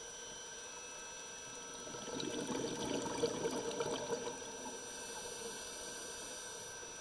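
Underwater recording: a rush of exhaled scuba bubbles bubbling and crackling with many small pops for about two and a half seconds, starting about two seconds in, over a steady faint hiss.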